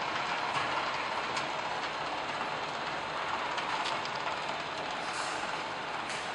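Steady clattering machinery noise, with a few faint clicks.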